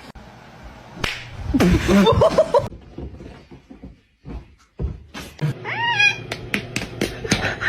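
Cat meowing: a drawn-out, wavering call about two seconds in and a short meow rising and falling about six seconds in, with sharp knocks and thumps around them.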